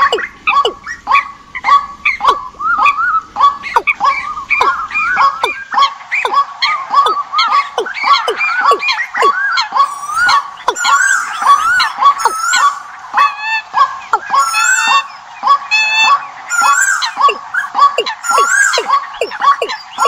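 Decoy recording of several birds calling at once: a fast run of repeated calls, about three a second, joined about halfway through by higher, wavering calls.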